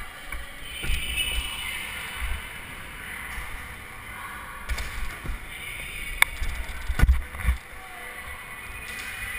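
Stunt scooter rolling over skatepark ramps and concrete, a steady rolling hiss with gusty wind rumble on the camera microphone, broken by two sharp clacks about six and seven seconds in.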